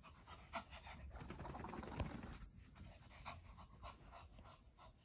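A Shih Tzu panting quickly and faintly, with a louder rustling stretch from about one to two and a half seconds in.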